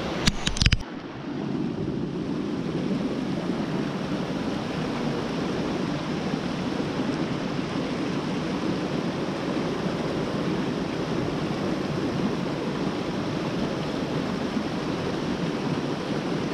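Creek water rushing steadily, with a few sharp knocks in the first second.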